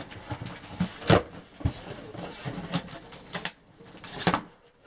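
Cardboard shipping box being opened and handled: rustling and scraping with scattered knocks, the loudest about a second in.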